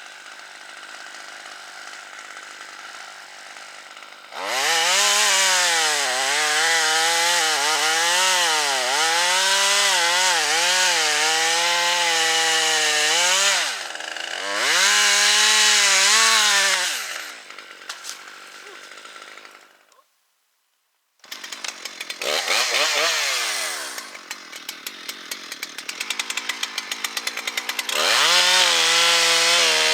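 Gasoline chainsaw idling, then cutting wood at full throttle in long passes, its engine pitch sagging and recovering as the chain bites. About two-thirds of the way through the sound cuts out completely for about a second, then the saw is heard cutting and revving again.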